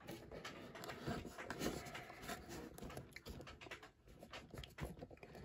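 Faint, irregular scratching and tapping of fingers working at a cardboard advent calendar box to open its first door.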